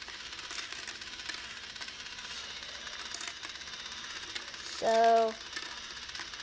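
Small battery-powered toy marble run running: its motor turns the spiral screw lift with a steady rapid clicking, and marbles click now and then along the plastic track.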